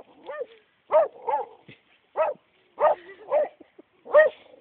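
Dog barking at a squirrel holed up in a hole: about eight short, loud barks, some in quick pairs, at roughly two a second.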